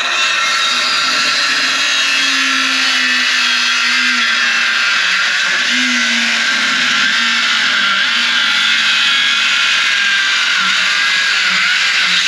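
Electric power saw running under load, cutting part way through a wooden 2x4. The motor's pitch sags and wavers as the blade works through the wood, and it stops suddenly near the end.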